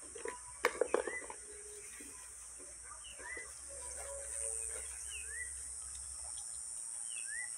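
A steady high-pitched insect drone, with a bird repeating a short rising chirp every second or two. A quick cluster of sharp knocks about a second in.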